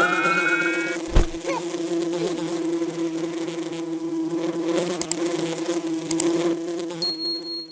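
Bee wings buzzing steadily in a low, even drone, with a single thump about a second in.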